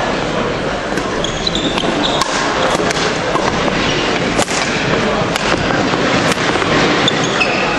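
Badminton rally: rackets striking the shuttlecock in sharp cracks about once a second, with short shoe squeaks on the wooden court floor, over a steady murmur of spectators in a large echoing hall.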